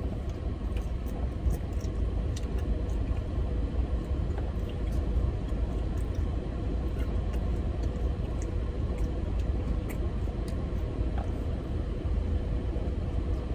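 Steady rumble of a car idling with its air conditioning blowing on high, heard from inside the cabin, with a few faint clicks and taps.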